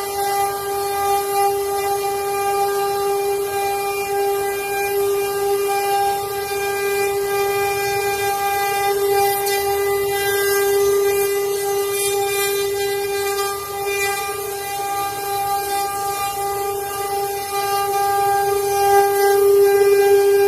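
Multi-head CNC wood carving router running, its spindles giving a steady whine at one unchanging pitch over a high hiss.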